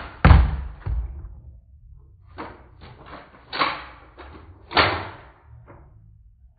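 Nerf blaster shots: a run of sharp clacks and thuds at uneven intervals, the loudest at the very start, each dying away quickly.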